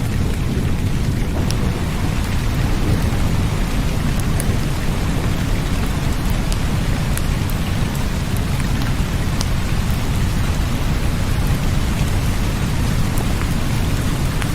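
Steady heavy rain with a deep continuous low rumble underneath and scattered sharp ticks of single drops.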